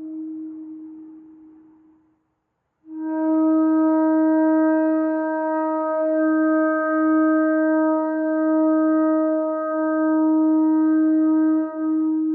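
Shofar (ram's horn) sounding long steady single-pitched blasts: one note fades out in the first two seconds, and after a short break a long blast holds for about nine seconds.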